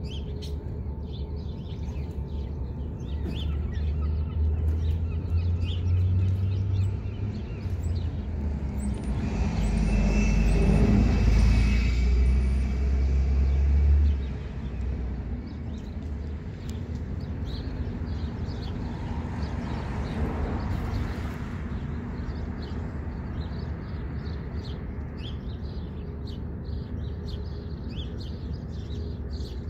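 Outdoor ambience: a vehicle rumble swells, is loudest about ten to fourteen seconds in and drops off sharply, then a smaller swell passes around twenty seconds in. Small birds chirp throughout.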